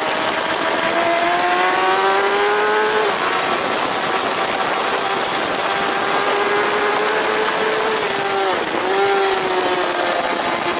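Racing superbike engine at full throttle, heard through heavy wind rush on the mic: its pitch climbs, drops sharply at an upshift about three seconds in, then climbs again, with a brief dip near the end.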